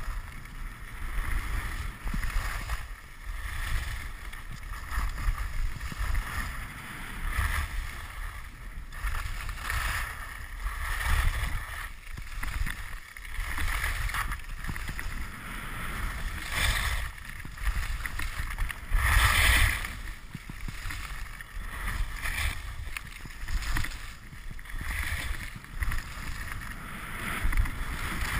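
Skis carving turn after turn on packed, groomed snow, a scraping hiss that swells every second or two, with one stronger scrape a little past the middle. Under it runs a steady rumble of wind on the camera microphone.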